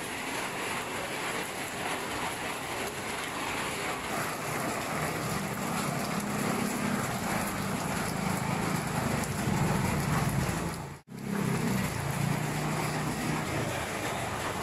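Light, steady rain falling on pavement and roofs. From about five seconds in, a low engine hum from a motor vehicle runs underneath. The sound cuts out for an instant about eleven seconds in.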